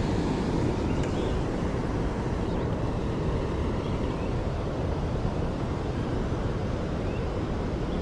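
Steady rush of water churning out of a dam spillway, an even, deep noise that holds constant.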